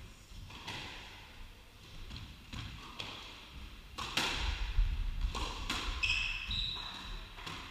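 Squash ball being struck and hitting the court walls and floor: several sharp smacks spread a second or so apart, with dull thuds of feet on the wooden floor and a short squeak of court shoes about six seconds in.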